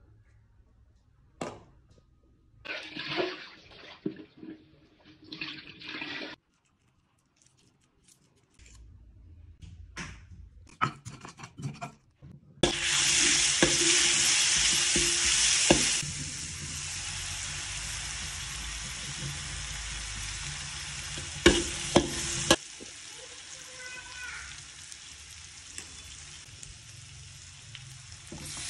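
Tomato and sliced shallots sizzling in hot oil in a wok, starting abruptly a little under halfway in and loudest for the first few seconds. A metal spatula stirs them, clicking and scraping against the pan. Before the frying starts there are scattered knocks and handling sounds.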